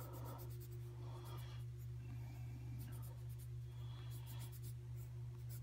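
Blue pencil scratching across drawing paper in short runs of quick sketching strokes, over a steady low hum.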